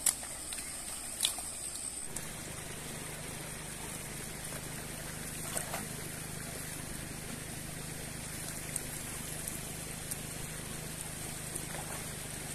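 Faint outdoor background noise with a steady low hum that starts about two seconds in, and a few faint ticks.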